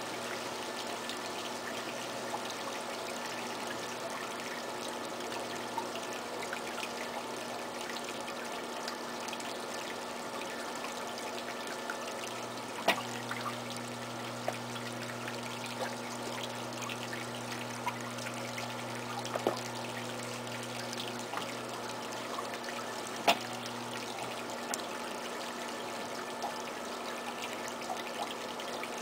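Electric potter's wheel running steadily under a large wet clay pot being thrown, a continuous whirr with a low hum that grows stronger for about ten seconds in the middle, and a couple of light knocks.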